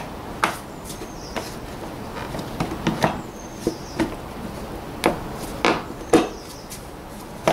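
Plastic airbox lid of a 2003 Volvo V70 being worked down onto the air filter housing, giving about eight irregular plastic knocks and clicks as its tabs are pushed into place.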